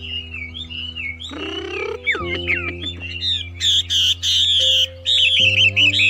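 Background music of sustained chords that shift every second or two, with birds chirping and whistling busily over it.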